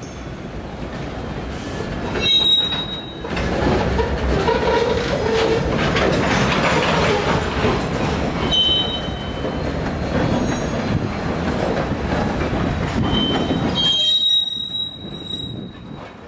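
Freight train cars rolling past with a steady rumble that swells about three seconds in and falls away near the end. High-pitched wheel squeals come briefly about two seconds in, again around eight seconds, and more strongly near the end.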